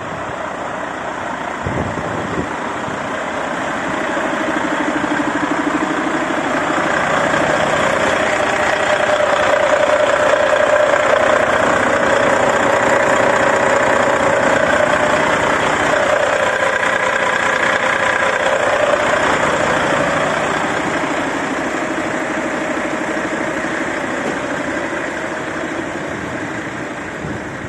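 2014 Volvo 400 dump truck's six-cylinder diesel engine idling steadily, loudest in the middle stretch where the engine bay is close by.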